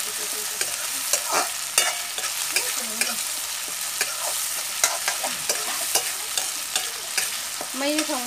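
A spoon stirring and scraping vegetables in a metal wok, over a steady sizzle of frying oil, with frequent sharp clicks.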